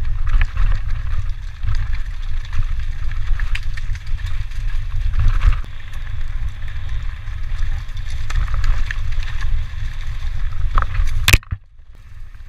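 Mountain bike ridden fast down a rough dirt trail, heard from a helmet camera: a heavy low rumble of wind buffeting the microphone, with the chatter, clicks and knocks of the tyres and bike over rocks and roots. About eleven seconds in, one sharp loud knock, then the sound drops suddenly to a much quieter rolling.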